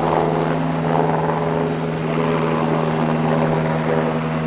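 Eurocopter Tiger attack helicopter in a low hover, its twin turboshaft engines and rotor running: a steady turbine whine with a high whistle over the beat of the main rotor.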